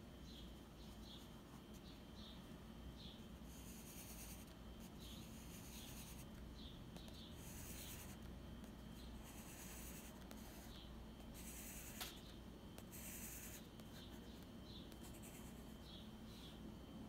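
Pencil scratching across sketchbook paper in several short spells of quick strokes, with one sharp tick near the middle.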